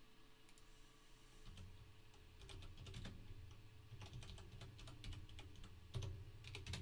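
Typing on a computer keyboard: runs of quick key clicks, with a louder keystroke near the end.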